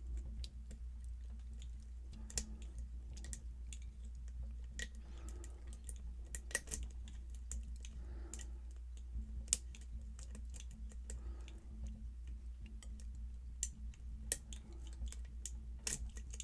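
Lock pick and tension wrench working the pins of a small challenge lock cylinder: scattered irregular metallic clicks and light scraping as the pins are set, over a steady low electrical hum.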